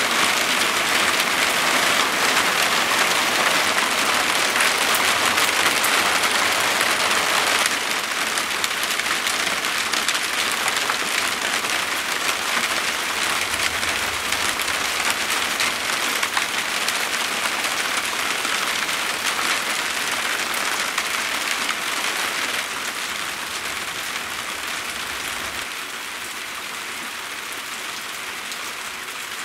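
Thunderstorm rain falling steadily, an even hiss that steps down in loudness about a quarter of the way in and again twice near the end.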